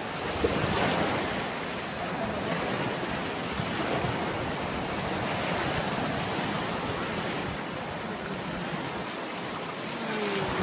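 Shallow surf washing and breaking, a steady rushing noise that swells and eases.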